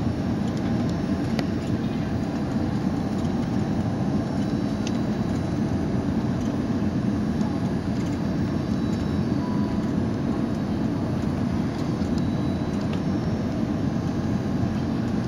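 Steady cabin noise inside an Airbus A330-300 airliner on final approach: engine and airflow noise heard from a window seat beside the wing, an even low drone with hiss that does not change.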